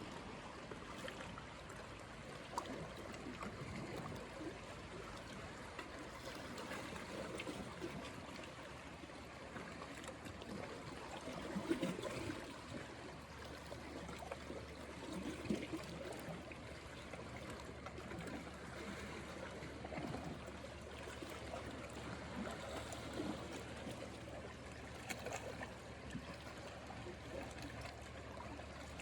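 Calm sea water lapping and trickling at the shoreline, a gentle steady wash with a few brief louder splashes.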